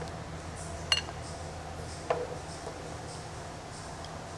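Dishes and utensils clinking as soup is served: a sharp, ringing clink about a second in and a duller knock about two seconds in, over a steady low hum.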